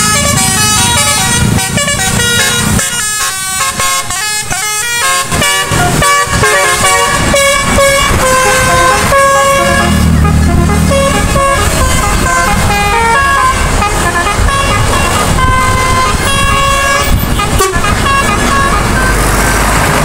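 Bus musical 'telolet' air horn playing fast melodic tunes, its notes stepping rapidly up and down, over the low rumble of bus engines and passing motorcycles.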